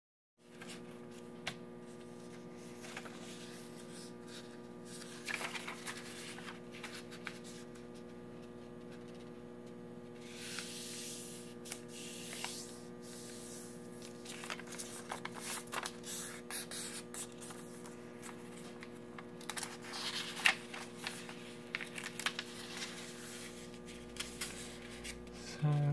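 Origami paper being handled and folded: short spells of rustling, sliding and creasing with small clicks of paper on the table, over a steady electrical hum.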